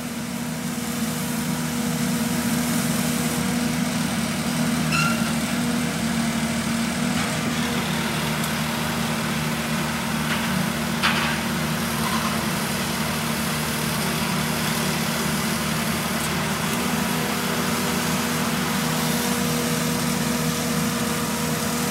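Ditch Witch JT9 directional drill's engine running steadily under load as the drill pulls conduit back through the bore, with a single faint click about eleven seconds in.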